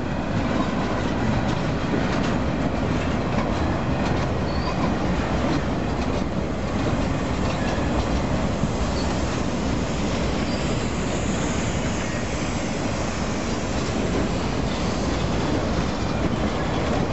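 Freight cars rolling past: steady rumble and clatter of steel wheels over the rails, with a brief high wheel squeal about ten seconds in.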